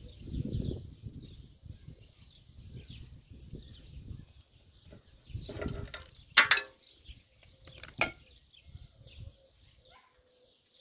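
Metal parts and tools knocking together while a drum mower is taken apart, with one loud clank that rings about six seconds in and a sharper knock near eight seconds. Birds chirp faintly in the background.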